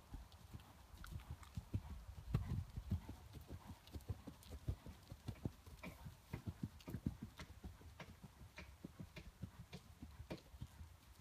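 Hoofbeats of a ridden horse trotting on sand arena footing: a quick, even run of dull thuds, several a second.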